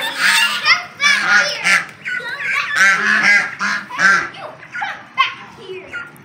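A flock of domestic geese honking over and over: a quick run of short calls that overlap one another, easing briefly near the end.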